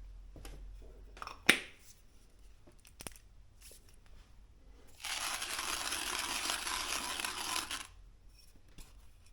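Handling of an Etzinger ETZ-I manual coffee grinder. There is a sharp click about one and a half seconds in and a lighter one a moment later. Then comes about three seconds of steady, gritty rustling.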